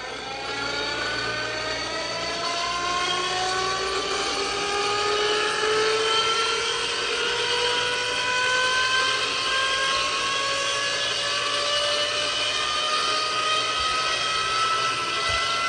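A WWII-era Eclipse aviation inertia starter being hand-cranked, its flywheel spinning up through the gear set. The whine climbs steadily in pitch the whole time and grows louder over the first few seconds.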